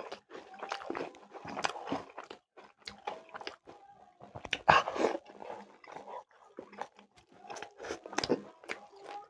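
A person eating close to the microphone: irregular smacking, biting and chewing mouth sounds, with a few louder crunchy bites about five seconds and eight seconds in.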